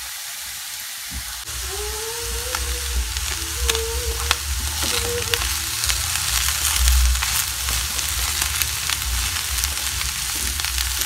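Shredded beef and diced potatoes sizzling in a frying pan with a steady hiss, stirred with a plastic spatula that scrapes and taps against the pan.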